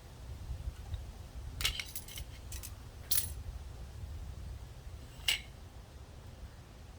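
Small metal parts clinking and jingling, several light clinks in a cluster between about one and a half and three seconds in and one more a little after five seconds, over a low steady hum.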